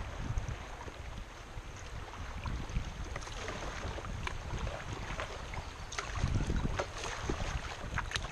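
River water rippling and lapping around a kayak hull as it drifts down a shallow riffle, with wind rumbling on the camera microphone. Small sharp splashes and drips come and go, more of them and a little louder about six seconds in.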